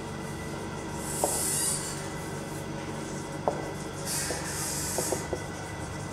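Marker pen squeaking across a whiteboard in two longer strokes, about a second in and about four seconds in, with a few sharp ticks of the tip against the board, over a faint steady hum.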